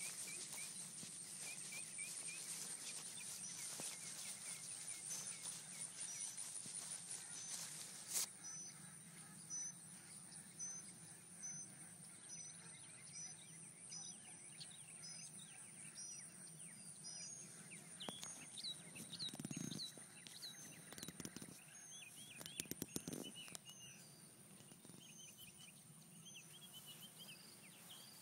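Birds chirping in short repeated calls over a steady high-pitched insect drone, with a faint low hum underneath and a single sharp tap about eight seconds in.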